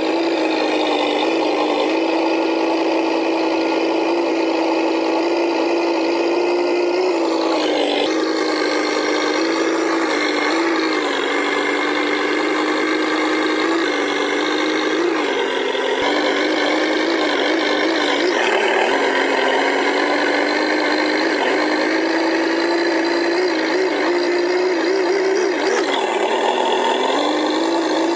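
Simulated V8 engine sound from a radio-controlled Tamiya M1025 Humvee's sound unit, mostly idling steadily with small rises in pitch now and then as throttle is given. It sounds thin, with no deep bass.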